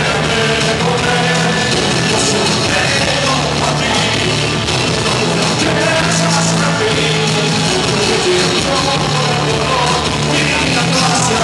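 A man singing a rock song live into a microphone over loud rock accompaniment, with a steady bass line.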